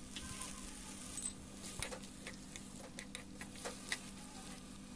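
Faint, scattered clicks and taps as coconut pieces are stirred with a spatula in a pan of hot oil and whole spices, over a faint steady low hum.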